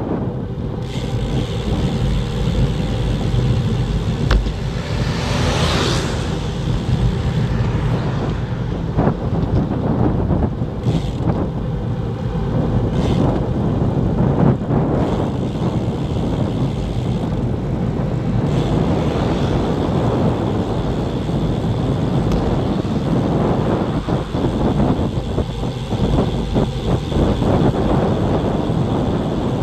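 Steady wind noise rumbling on the microphone of a camera riding on a road bike at around 25 km/h.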